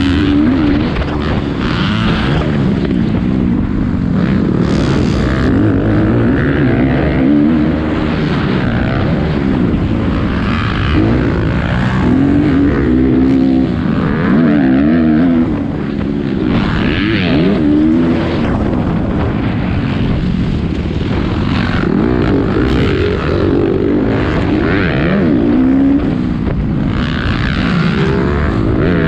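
450-class motocross bike engine revving up and falling back again and again as the rider accelerates, shifts and brakes around a dirt track, heard from a helmet-mounted camera.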